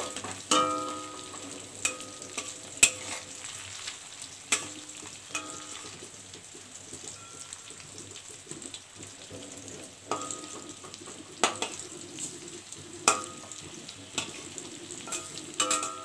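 Fish roe frying in hot oil in a metal kadai, a steady sizzle, with a metal spatula now and then scraping and clinking against the pan as the pieces are turned.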